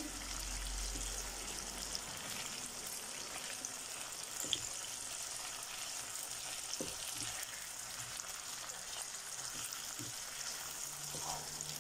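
Chicken and carrot sticks sizzling steadily as they fry on high heat in a nonstick pot, with a silicone spatula stirring them and knocking softly a few times.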